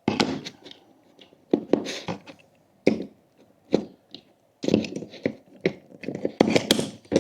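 Irregular clicks and knocks of camera gear being handled: the aluminium camera cage's Arca-Swiss quick-release plate is being fitted to a Manfrotto tripod head and clamped. A few single knocks come first, then a quicker cluster of clicks and taps near the end.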